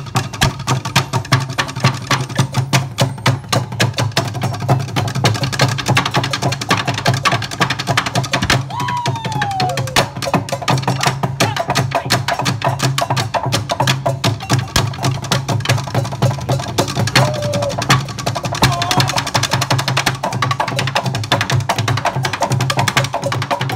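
Percussion ensemble beating drumsticks fast and hard on wooden stool seats in a dense, driving rhythm, with deeper drum beats underneath.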